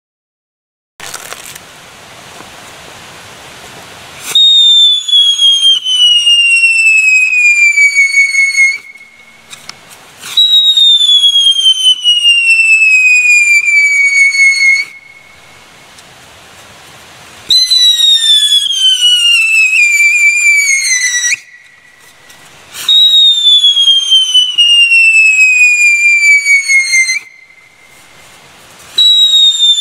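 A 1985 Höllenfeuerrad mit Pfiff whistling firework wheel spinning. It fizzes with sparks for a few seconds, then gives a run of loud whistles, each sliding down in pitch over about four seconds, with quieter spark hiss in the short gaps. Four whistles play out in full and a fifth starts near the end.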